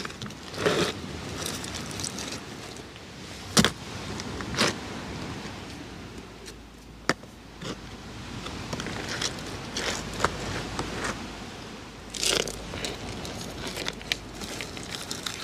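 Stones knocking and clinking together and scraping on pebble gravel as rocks are set in place by hand. Scattered sharp knocks, the loudest about three and a half seconds in and another about seven seconds in.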